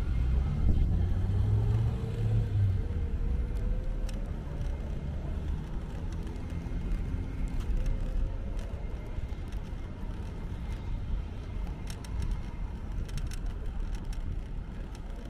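Road traffic rumble, heaviest in the first few seconds and easing off, with a faint rising whine through the middle and a scatter of light clicks near the end.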